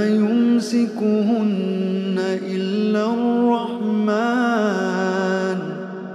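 A man reciting the Quran in a melodic chanting style, drawing out long held notes with ornaments that bend up and down. The voice eases off near the end.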